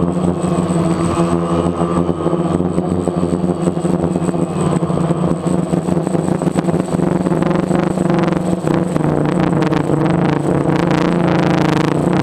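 DJI Phantom quadcopter's electric motors and propellers humming steadily in flight, with a thin high whine above the hum. Wind buffets the microphone in the second half.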